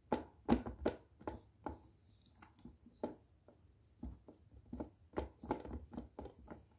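Wooden spatula scraping and tapping against the sides of a plastic food processor bowl as it stirs thick peanut butter and cacao: a run of irregular scrapes and knocks.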